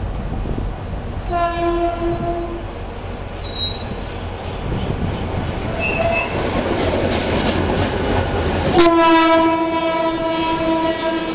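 Diesel locomotive air horn blowing: a short blast about a second in, then a long steady blast starting suddenly about nine seconds in. Underneath is the continuous rumble and clatter of a freight train of hopper wagons passing close alongside.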